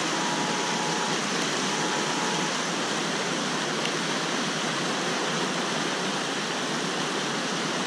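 Muddy flash-flood water rushing through a desert wash after a thunderstorm, a steady, unbroken rush.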